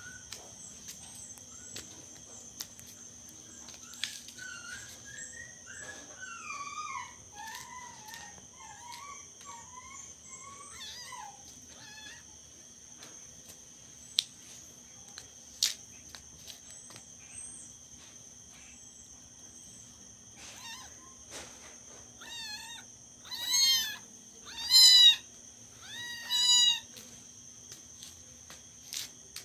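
Kittens meowing: a string of small, wavering mews from about four seconds in, then three loud meows near the end.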